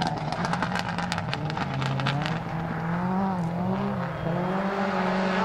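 Subaru Impreza STI's EJ20 turbocharged flat-four with equal-length headers, driven hard: a quick run of sharp pops and crackles over the first two seconds or so, then the engine revving up and down repeatedly as the car is worked through the corner.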